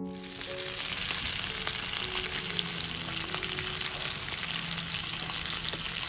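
Oil sizzling steadily with scattered small pops as a whole masala-coated pomfret pan-fries. Soft piano music plays underneath.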